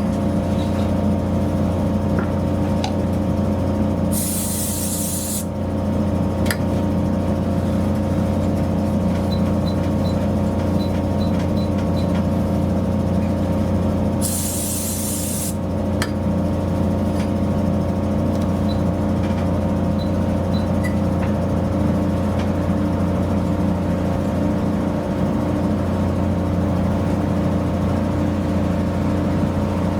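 Mercedes-Benz C220d's four-cylinder diesel engine idling steadily. Two short hisses of about a second and a half each cut in, about four seconds in and again about fourteen seconds in.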